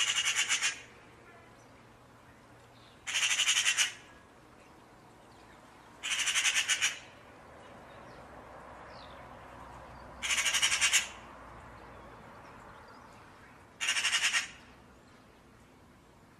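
A bird's harsh, rattling call, made of rapid pulses, repeated five times about every three and a half seconds.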